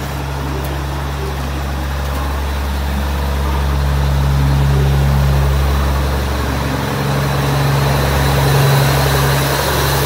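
JR HC85 series hybrid diesel limited express train pulling out of a station, its diesel generator engines running with a steady low drone as the cars roll by.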